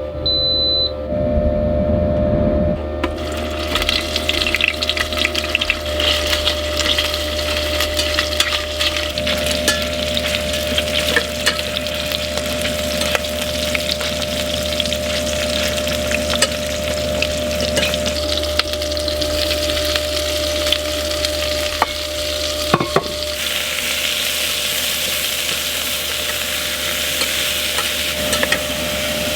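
Food sizzling and frying in a pan while being stirred, starting about three seconds in, over the steady buzzing of a diesel heater.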